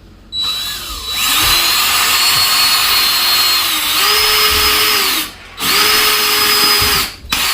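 Power drill boring into the ceiling. It runs with a steady whine, stops briefly about five seconds in, starts again, then gives a short last burst near the end.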